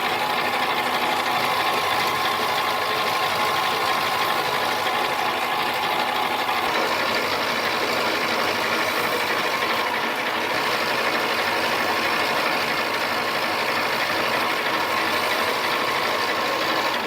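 Mini lathe running steadily through a turning pass on an aluminium bar, bringing its diameter down; its motor and gear train give an even whir with several steady whining tones, and it stops at the very end.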